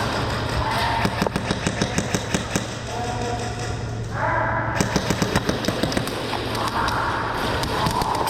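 Airsoft guns firing rapid bursts of sharp clicking shots, about five or six a second: one burst about a second in and another about five seconds in. Background music plays underneath.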